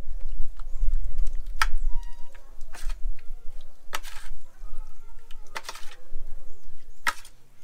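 A spoon clinking against a stainless steel plate as food is scooped: five sharp clicks, one every second or so, over a low rumble.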